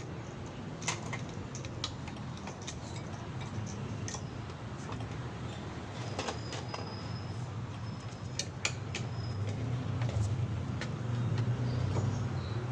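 Scattered light clicks and clinks of small hard objects being handled, over a steady low hum, with two brief faint high tones in the middle.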